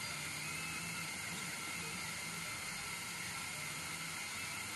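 CNC 1610 mini router with a 500 mW laser module engraving: a steady hiss with a faint high whine, and a low stepper-motor hum that starts and stops as the axes make each short move.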